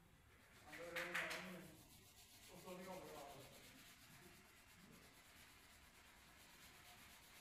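A hand-held pad rubbing dark stain or polish into grooved wooden boards, a short scrubbing sound about a second in; faint voices in the background.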